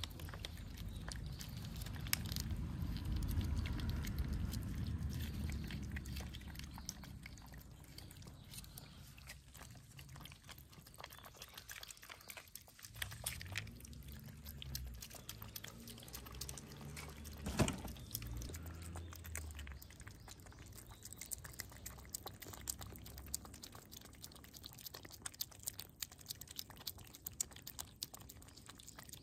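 Cats eating, chewing their food with many small, quick clicks. A low rumble rises in the first few seconds and comes back around the middle, and there is one sharper click a little past halfway.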